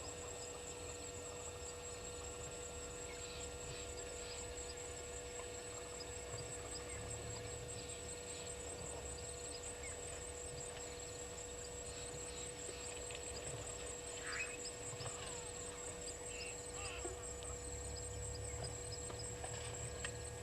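Outdoor waterhole ambience: a steady, fast-pulsing high-pitched chirr with scattered faint chirps and a short call about two-thirds of the way through, over a steady low hum and low rumble.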